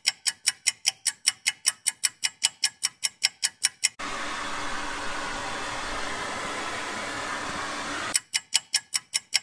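A regular ticking, about five ticks a second, stops about four seconds in. A hair dryer then blows steadily on the frosted evaporator coils for about four seconds, and the ticking returns near the end.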